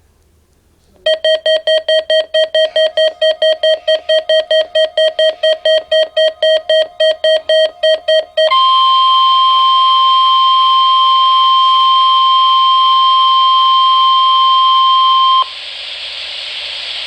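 A weather alert radio's alarm beeping rapidly, about four beeps a second, for about seven seconds. Then comes the NOAA Weather Radio 1050 Hz warning alarm tone, one steady loud tone held for about seven seconds, sent during the required weekly test to set off tone-activated receivers. It cuts off suddenly to a lower radio hiss.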